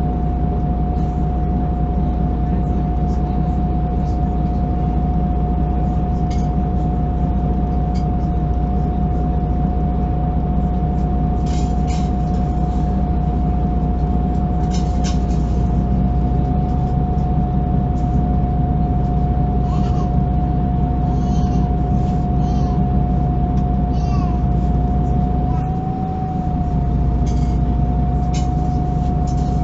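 Solaris Urbino 12 city bus heard from inside, its engine running with a steady low drone and a constant mid-pitched whine. Short rattles and clicks come through now and then, the rumble dips briefly near the end, and there are a few short high squeaky wavering sounds.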